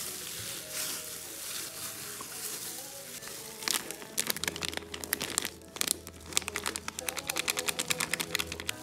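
Soft background music, with rapid crinkling and crackling from about four seconds in as corn starch is poured over mashed potato in a bowl.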